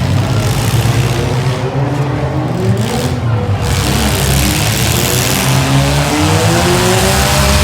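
Compact demolition derby cars' engines running hard and revving, one engine's pitch rising through the second half.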